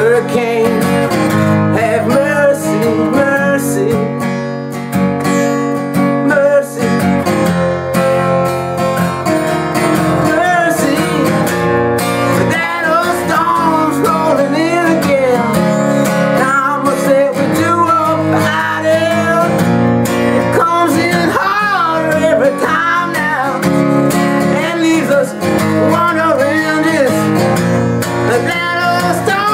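Acoustic guitar strumming, an instrumental passage of a folk-blues song, with a wavering melody line over the chords.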